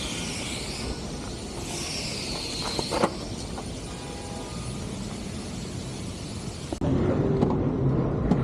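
Steady background rumble of engine noise, with a single knock about three seconds in. About seven seconds in it switches abruptly to a louder, lower hum.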